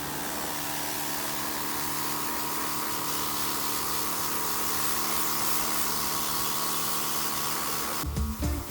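Wholesun WS 3000 electric pressure washer running: a steady motor hum under the hiss of the water jet spraying. It stops suddenly near the end.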